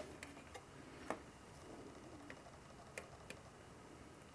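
A few faint, sharp clicks of pliers working a resistor's wire lead, the loudest about a second in.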